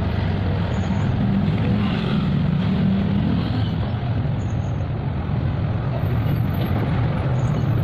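Steady low rumble of road traffic, motor engines running without a break.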